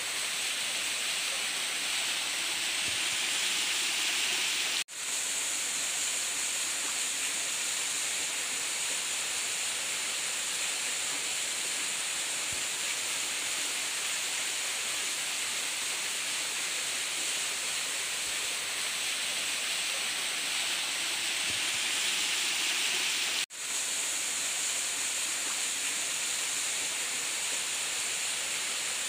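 Steady rushing hiss of water falling and running over rocks from a small waterfall and stream. The sound cuts out for an instant twice, about five seconds in and again a few seconds before the end.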